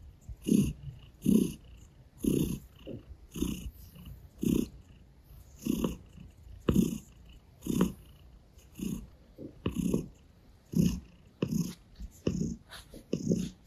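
Russian blue cat purring close up, in rough swells about once a second that rise and fall with its breathing.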